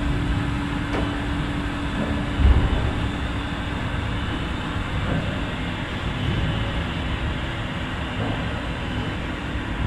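Rhaetian Railway Ge 6/6 II electric locomotive turning on a depot turntable: a steady mechanical hum and rumble. A steady tone stops with a low thump about two and a half seconds in, and a few faint clicks come at intervals.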